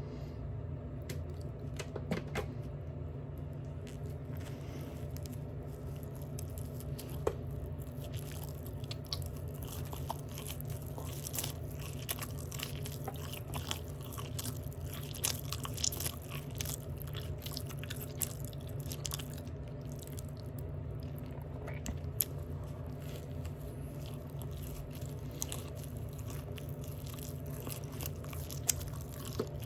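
Open-mouth chewing of a Big Mac burger close to the microphone: wet smacking, biting and soft crunching, with irregular clicks throughout and a few sharper ones. A steady low hum sits underneath.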